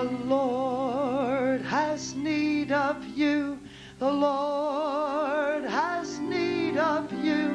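A woman's voice singing a slow worship chorus with a wide vibrato over steady held instrumental chords; the singing breaks off briefly about three and a half seconds in, then resumes.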